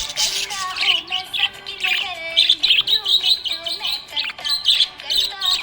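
Budgerigar chirping and warbling: a rapid, unbroken run of short high chirps with lower gliding notes mixed in.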